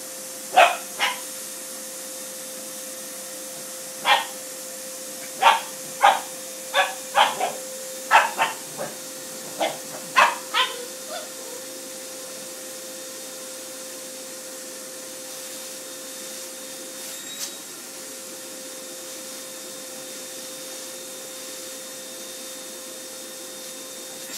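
A Bugg (pug–Boston terrier cross) barking in a string of short, sharp barks at a running vacuum cleaner, which keeps up a steady hum throughout. The barking stops about eleven seconds in, leaving only the vacuum's hum.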